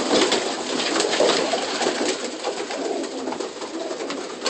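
Racing pigeons cooing in an enclosed loft, with many short rustles and clicks mixed in.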